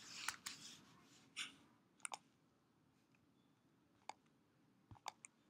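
Near silence broken by a few faint, sharp computer mouse clicks, with soft hissy noise in the first second and a half.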